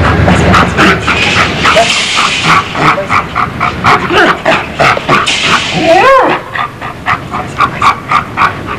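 Caucasian shepherd dog panting hard, about three breaths a second, with a short whine that rises and falls about six seconds in.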